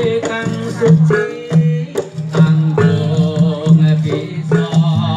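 Javanese jaranan music: hand drums striking over a low pitched tone that comes and goes, with a wavering melody line above.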